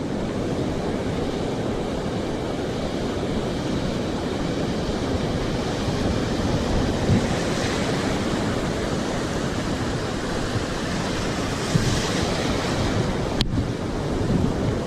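Ocean surf breaking on the beach, with wind rumbling on the microphone, a steady loud rush. A single sharp click about thirteen seconds in.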